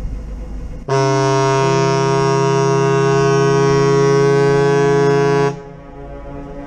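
The Chi-Cheemaun ferry's ship horn sounds one long blast of about four and a half seconds. It is a steady chord of several notes, and one note shifts pitch just after the start. Wind rumbles on the microphone before and after the blast.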